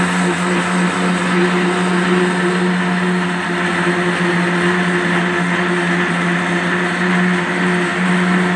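Electric mixer-grinder running steadily at full speed, its motor humming with a constant pitch as the blades churn split urad dal and a little water into a paste.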